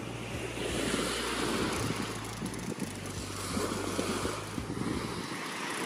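Wind buffeting the microphone in a crackly rumble, over a steady hiss of surf.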